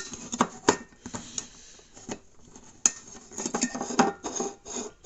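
Leatherman Rev multi-tool's hooked can opener blade levering its way around the rim of a tin can: an irregular series of short metallic clicks and scrapes, with sharper clicks at the start and about three and four seconds in.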